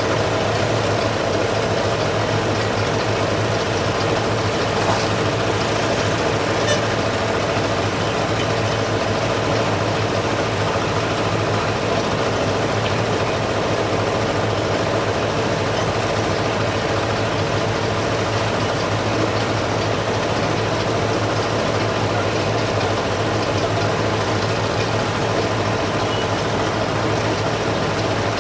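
Heavy engine running steadily at idle, a constant even drone with a couple of faint clicks about five and seven seconds in.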